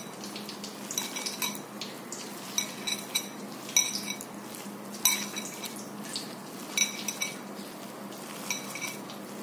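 Hand mixing and mashing boiled fish with salt and turmeric in a metal bowl: light metallic clinks against the bowl, each with a short ring, come about one or two a second at uneven intervals.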